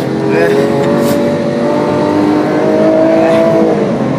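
Lamborghini engine heard from inside the cabin under hard acceleration, its note climbing steadily through the gear and then dropping sharply near the end.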